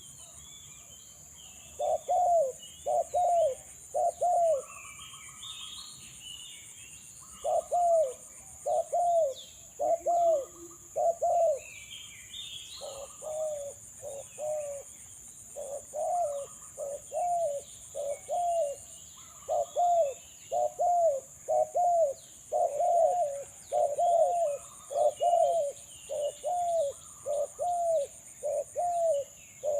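Spotted dove cooing, a string of short, low, arched coo notes. It gives a few at first, pauses, then calls again and keeps up a near-continuous chain of coos.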